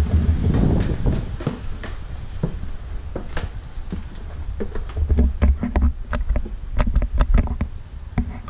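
Footsteps climbing old wooden stairs: a run of irregular knocks and heavy thuds from feet on the treads, thickest over the last few seconds.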